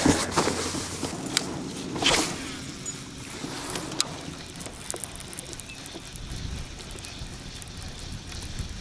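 A steady wash of wind and water around a kayak on open, rippled water, with a low rumble of wind on the microphone near the end. A few light clicks come through, and a brief rush of noise about two seconds in.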